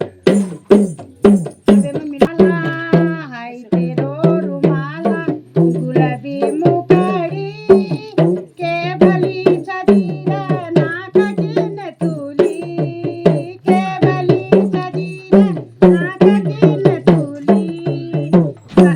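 Hudka, the Kumaoni hourglass drum, beaten in a steady rhythm. From about two seconds in, a voice sings a Pahadi folk melody over it.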